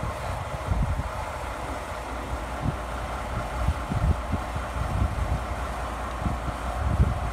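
Diesel locomotive idling at a standstill, a steady engine drone, with wind buffeting the microphone in low, uneven thumps.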